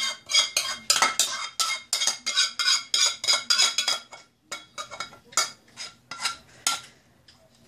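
A metal spoon scraping and knocking inside an aluminium saucepan to get the last of the sauce out, a quick run of ringing strokes about three or four a second. After about four seconds the strokes come further apart and stop near the end.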